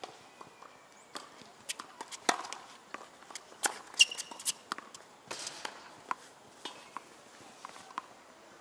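Tennis rally on a hard court: sharp pops of racquets striking the ball and the ball bouncing, with the players' footsteps on the court. The loudest hit comes about four seconds in, from the near player's racquet.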